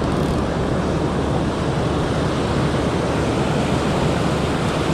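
Ocean surf: waves breaking and whitewater washing over the sand in a steady, even rush.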